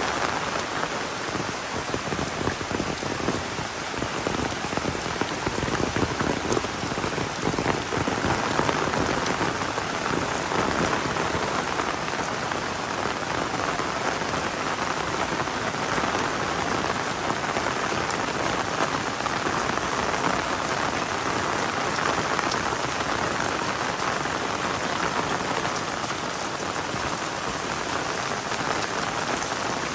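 Heavy tropical rain falling steadily, a dense even patter of drops hitting surfaces, with no let-up.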